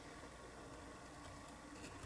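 Near silence: quiet room tone with a faint steady hum and no distinct sound events.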